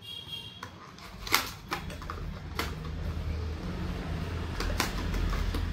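Cardboard packaging being opened and handled: an inner box slid out of its sleeve, with a few sharp clicks and taps, the loudest about a second and a half in, over a low hum.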